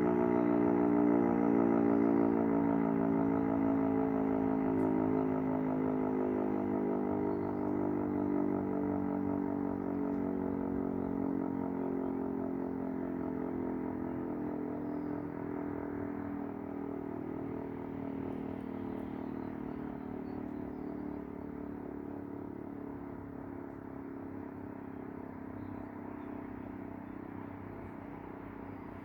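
Rooftop electromechanical warning siren winding down at the end of a test, one long tone slowly falling in pitch and fading.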